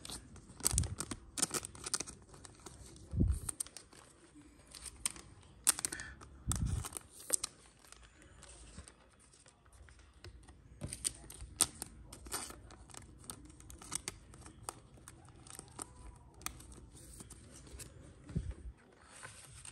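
Trading card pack wrapper being torn open and crinkled, with a few low thumps among the crackles.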